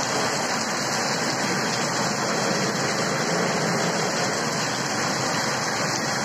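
Heavy monsoon rain pouring down in a steady hiss.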